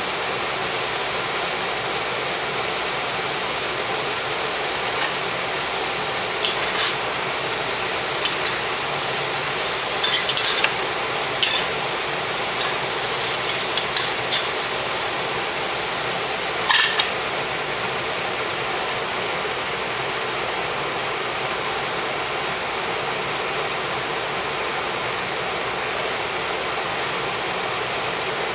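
Stir-fry sizzling steadily in a pan, with several sharp metal clinks and scrapes of a spatula against the pan through the first half or so.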